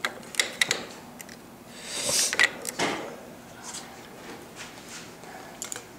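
Small sharp clicks and a brief scraping rub from a screwdriver and plastic handlebar parts being worked while a throttle cable ferrule is seated into its channel at a motorcycle's throttle grip. A quick run of clicks comes right at the start, a longer scrape with a snap about two seconds in, and a couple more clicks near the end.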